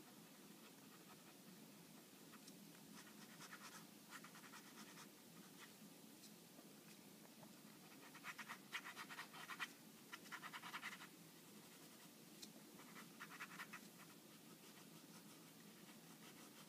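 Pen scratching across paper in short bursts of quick drawing strokes, the loudest around the middle, over a faint steady low hum.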